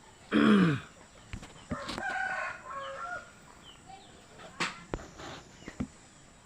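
Domestic chickens calling: a loud short call falling in pitch about half a second in, then a rooster crowing more faintly a second and a half later, with a few light knocks in between.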